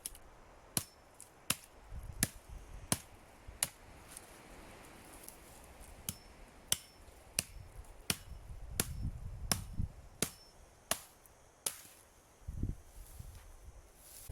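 A regular series of sharp knocks, about one every 0.7 seconds, pausing briefly near the middle: a hand tool striking repeatedly, as in chopping.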